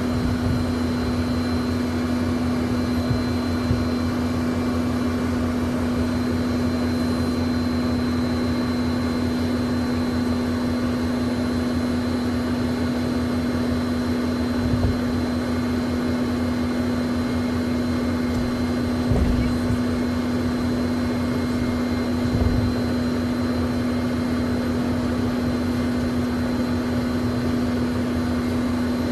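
Learjet jet engines heard from inside the cabin while taxiing to the runway: a steady hum with a strong low drone and a thin high whine. A few soft low thumps come through about halfway and again later on.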